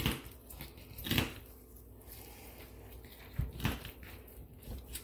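Snips crunching through a bass's dorsal fin spines, heard as a handful of separate crunches, the loudest about a second in.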